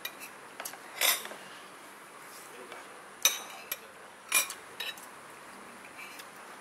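Cutlery clinking against plates and bowls while people eat: a handful of separate sharp clinks, the three loudest spaced a second or so apart.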